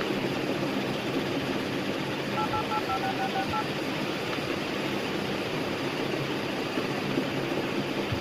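Samsung Galaxy Note 3 dialer keypad tones: about two seconds in, eight quick touch-tone beeps as a number is tapped in, over a steady background noise.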